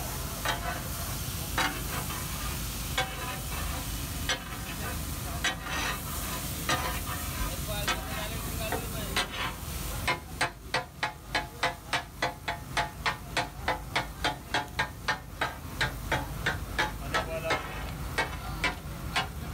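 Metal spatulas clanging against a large flat griddle as fish katakat is chopped and stirred, over the sizzle of the frying. The strikes are scattered at first, then about halfway through turn into a fast, even chopping rhythm of about three or four clangs a second.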